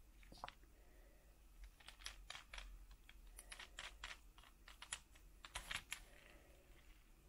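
Plastic toy figures being handled: faint, irregular clicks and taps, some in quick clusters.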